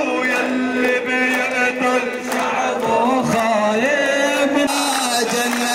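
Crowd of men chanting a slow song in unison, with long held notes that rise and fall.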